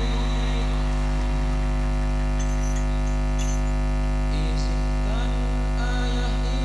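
Loud, steady electrical mains hum in the sound system's mixer feed, with a few faint snatches of voice on the microphones in the second half.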